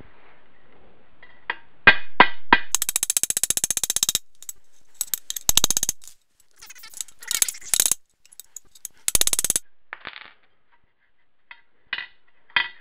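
Hammer blows driving a pin into a shift fork on its shift rail in a transmission case, played at four times speed. A few separate taps, then a long, quick-fire run of strikes about three seconds in, shorter runs after it, and scattered light taps near the end.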